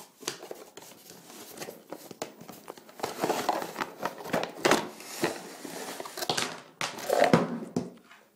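Packaging for an AC adapter being opened and handled by hand: irregular crinkling and rustling, louder and busier from about three seconds in.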